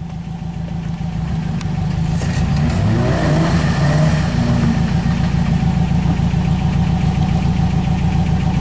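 Off-road vehicle engine running, growing louder over the first three seconds and then holding steady with an even, rapid beat.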